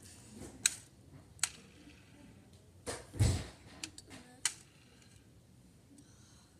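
Scattered sharp clicks and taps close to the microphone, about half a dozen over a few seconds, with a louder thump and rustle about three seconds in.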